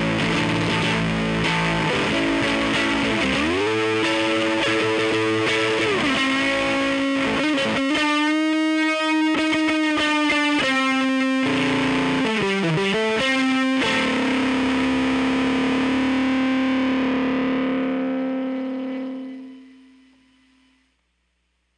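Electric guitar played through a Phantom fx Sabbath Bliss pedal, giving a distorted tone. Chords give way to bent and wavering single notes, and a final held note sustains and dies away near the end.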